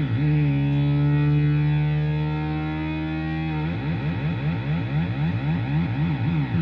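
Korg MS-20 analogue synthesizer sounding a held, buzzy note whose pitch is swept up and down evenly by the modulation generator, a vibrato of a few wobbles a second. About half a second in the wobble stops and the note holds one pitch for about three seconds, then the wobble comes back, a little faster.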